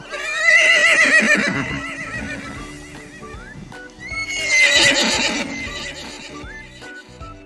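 Horse neighing twice, each a loud, wavering whinny of a second or two: the first just after the start, the second about four seconds in.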